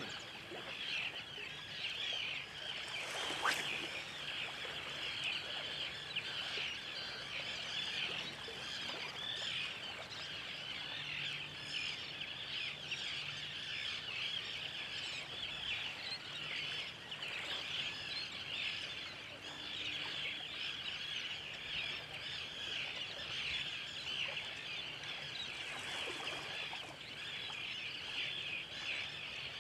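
A flock of birds calling all at once in a dense, continuous chatter, with a brief whoosh about three and a half seconds in.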